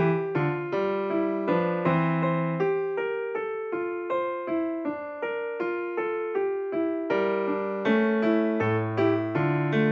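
Background piano music: a gentle melody over low chords, each note starting sharply and fading, about two notes a second.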